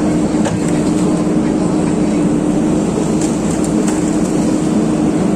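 JCB excavator's diesel engine running steadily with a constant hum, with a few faint clicks and knocks over it.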